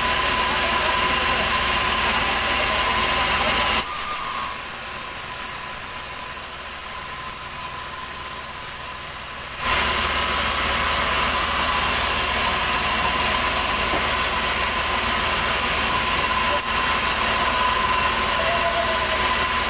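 Sawmill band saw running steadily with a high tone, sawing a heavy log of ulin (Bornean ironwood). The sound drops lower for about six seconds starting about four seconds in, then comes back up.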